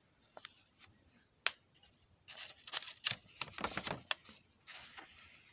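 A paper page of a book being turned by hand: a few light ticks, then a rustle of paper about two seconds in lasting around two seconds, with a softer rustle near the end.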